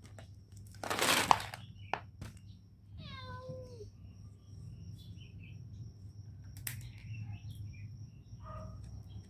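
A cat gives one short meow about three seconds in, falling in pitch. It follows a brief, louder rustling noise about a second in.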